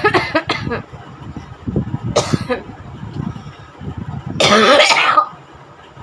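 A woman's forced, deliberate coughing and throat-clearing: a quick run of short coughs at the start, a single cough about two seconds in, and a longer, louder harsh cough near the end.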